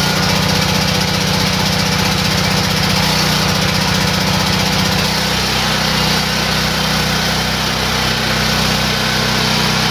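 Ridgid RD6800 generator's Yamaha single-cylinder engine running steadily just after its first start. The engine note evens out about five seconds in.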